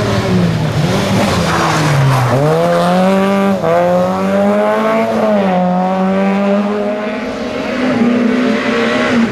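Rally car engine driven hard on a stage: its pitch drops about two seconds in, then climbs back up through gear changes and holds high, with some tyre noise.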